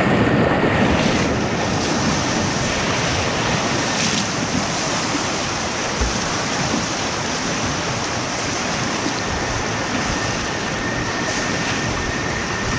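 Steady rush of water over river rapids, with wind buffeting the microphone.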